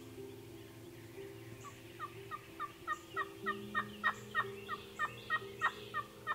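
Wild turkey yelping: a long series of about fifteen short notes, each dropping in pitch, about three a second, beginning about two seconds in and growing louder toward the middle.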